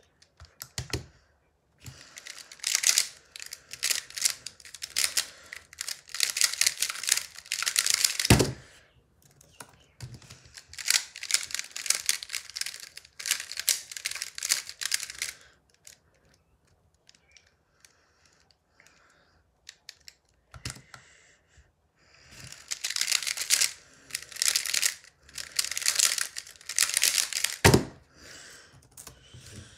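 Plastic Square-1 puzzle being turned very fast in speedsolves: bursts of rapid clicking and rattling as its layers twist and slice, with a quieter pause in the middle. A sharp thump ends each burst near the middle and again near the end, as the solve finishes on the timer mat.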